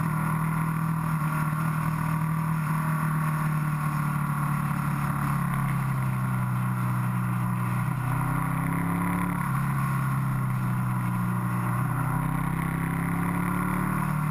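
Motorcycle engine running under way on a winding road, its pitch dropping briefly about eight seconds in and again near twelve seconds, then climbing back, with wind rushing over the microphone.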